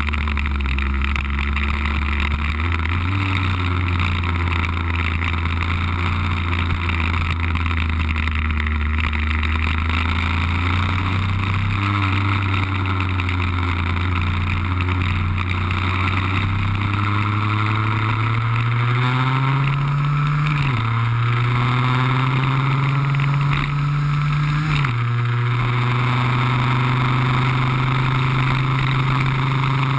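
Lambretta scooter's two-stroke RB20 engine running under way, heard from on board over a steady hiss. Its pitch eases up and down through a bend, climbs steadily under acceleration, then drops suddenly twice about two-thirds of the way in, as gear changes, before holding steady.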